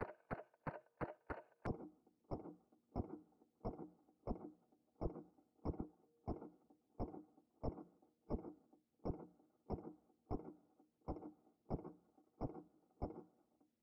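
A steady, evenly spaced thudding beat with a small click on each stroke, about three a second at first. After a sharp click near two seconds in it drops to about half that pace. It stops abruptly at the end.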